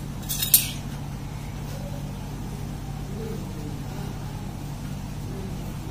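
A metal spoon clicks sharply two or three times against a small clay pot as spice powders are stirred into diced potato, the loudest click about half a second in. A steady low hum runs underneath.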